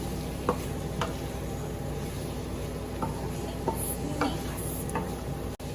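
Pork frying in a wok with a steady sizzle, and a utensil clinking against the wok about six times.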